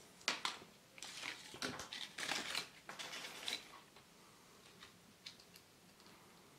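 Crackling and rustling of a paper instruction sheet with sharp clicks of small plastic toy parts being handled, busiest over the first three and a half seconds, then a few faint clicks.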